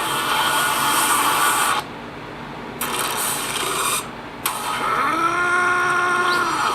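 Soundtrack audio played through the ASUS ZenPad S 8.0's front stereo speakers: a loud, hissy, machine-like din that cuts out briefly twice. About five seconds in, a held tone with several pitches comes in.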